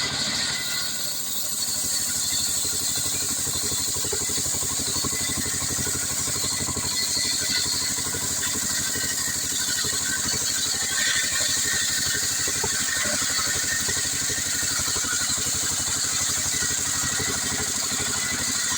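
Stihl 070 two-stroke chainsaw engine running steadily at an even pitch, driving a chainsaw sawmill.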